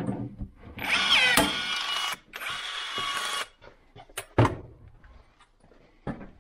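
DeWalt cordless drill running in two bursts of about a second each while it drills into the metal switchboard box, then a single sharp knock about four seconds in and a few light clicks near the end.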